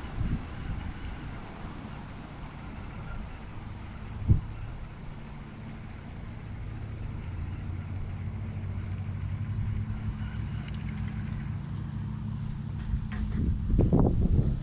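Steady low motor hum with a single sharp knock about four seconds in, and faint insects chirping over it. Louder irregular knocks and rustles come near the end.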